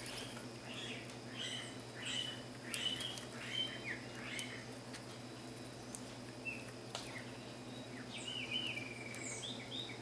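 Small birds chirping: a quick run of short, high chirps through the first few seconds, then a few more near the end. A steady low hum runs underneath.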